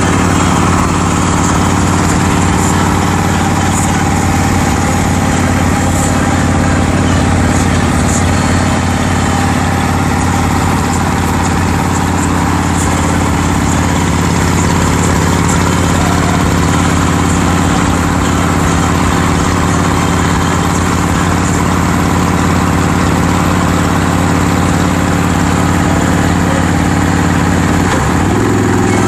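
Steady engine drone with wind and road noise from vehicles cruising at highway speed, a motorcycle running alongside the car. The engine pitch steps up suddenly near the end.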